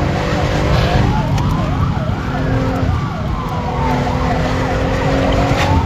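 Police sirens heard from inside a moving car: one wailing slowly up and down while another yelps in fast sweeps about four times a second, over the car's engine and road rumble.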